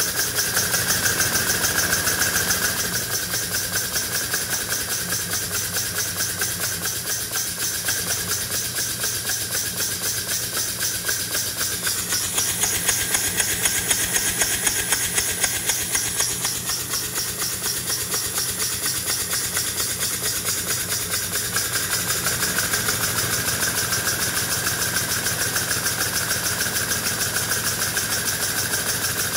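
Scale live-steam 4-8-4 Northern locomotive's cylinders and Walschaerts valve gear running fast with the driving wheels spinning free off the rails: rapid, even exhaust beats over a steady hiss, with a mechanical clatter from the rods.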